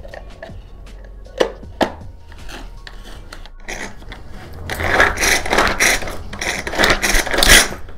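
Manual pull-cord mini chopper being worked: two sharp clicks, then from about halfway a loud run of rapid whirring rasps, about three a second, as the cord is pulled again and again and the blades spin through tomato in the plastic jar.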